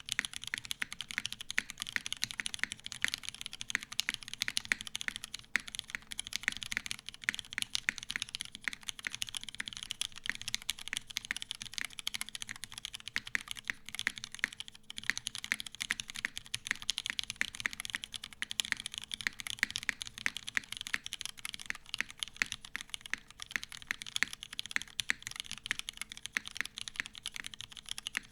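Continuous fast typing on a TGR 910 CE mechanical keyboard with lubed vintage Cherry MX Black linear switches in a brass plate, top mount, under GMK doubleshot keycaps: a dense, even run of keystroke clacks and bottom-outs.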